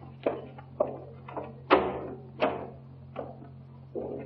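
Footsteps on a hard floor, a sharp knock every half second or so, followed by a door being opened, over a steady low hum from the early sound-film track.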